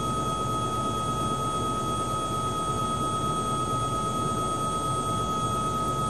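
Bell 505 Jet Ranger X helicopter heard from inside the cabin, its Safran Arrius 2R turboshaft and rotor running steadily. A high steady turbine whine sits over a dense rumble, with no change in pitch or level.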